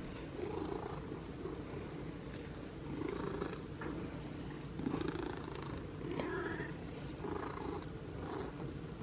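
Domestic cat purring, a low rumble that swells and fades with each breath.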